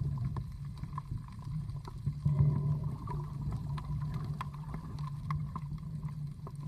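Muffled underwater sound from a camera submerged in the sea: a steady low drone with scattered small clicks and ticks.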